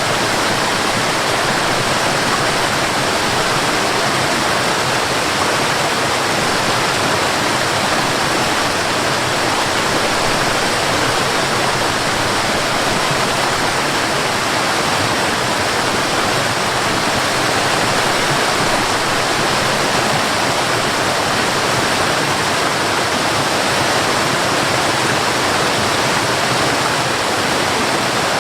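Mountain river rushing over rocks: a steady, loud wash of water.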